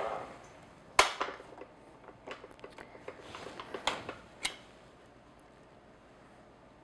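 Tilt-head stand mixer being opened: one sharp click about a second in as the head is raised, then lighter clicks and knocks as the beater attachment is unlatched and pulled off the drive.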